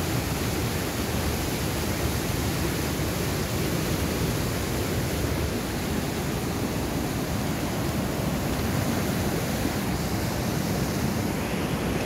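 Fast mountain stream rushing over boulders in whitewater rapids: a steady, even wash of water noise.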